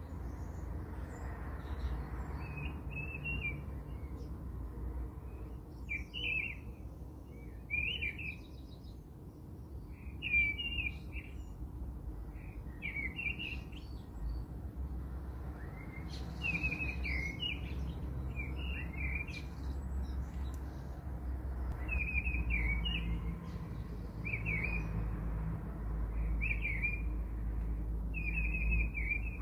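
Small songbirds chirping in short, repeated phrases, over a low steady hum.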